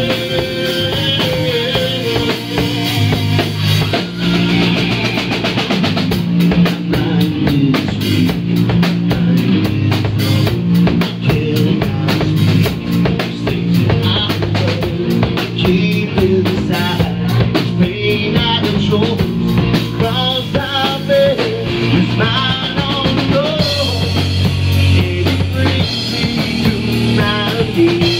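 Live rock band playing: a man singing over electric bass and a drum kit.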